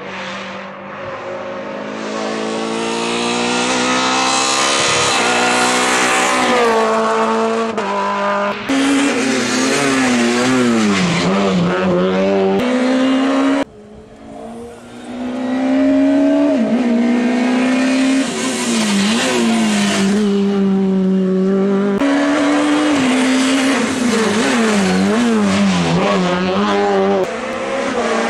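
Race car engines revving hard through the gears in several separate runs. The pitch climbs and then drops sharply at each upshift, and the sound changes abruptly about a third of the way in, halfway, and again later.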